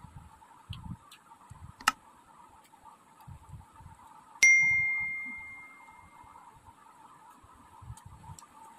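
A single bright, bell-like metallic ding about four and a half seconds in, ringing out clearly and fading over about two seconds. A sharp click comes about two seconds in, and soft, irregular chewing sounds sit low in the background.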